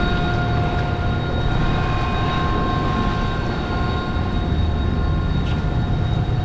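Steady, loud drone of a large sportfishing yacht's diesel engines running, with several steady whining tones from its machinery over the low rumble.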